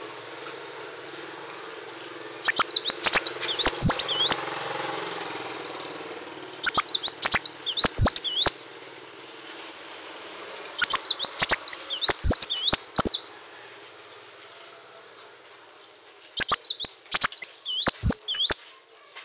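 A sunbird (burung madu wulung) singing four bursts of rapid, high, twittering notes. Each burst lasts about two seconds and they come roughly every four seconds, over a steady low hum.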